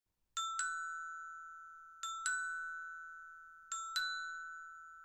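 Three two-note chime dings, about one every 1.7 seconds. In each, a second note slightly higher than the first follows a quarter second later, and both ring out and fade slowly.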